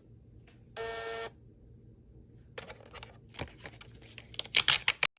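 Phomemo thermal label printer's motor whirring briefly for about half a second, followed by a run of sharp clicks and taps that are loudest near the end, where the sound cuts off abruptly.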